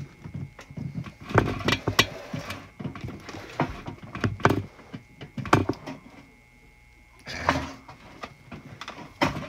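Close handling noises of a small folded paper note being worked open in the hands: irregular crinkles, rustles and clicks for the first six seconds, then a short noisy burst about seven seconds in.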